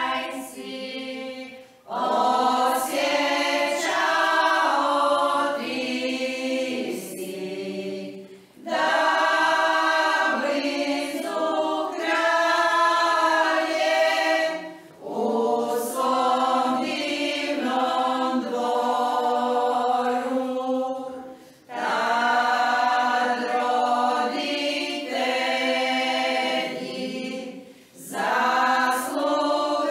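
A women's folk choir singing a Croatian church folk hymn unaccompanied, in phrases of about six seconds with brief breaks between them.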